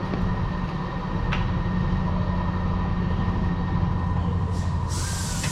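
Steady low machine hum, with a single sharp click about a second in and a hiss that starts near the end.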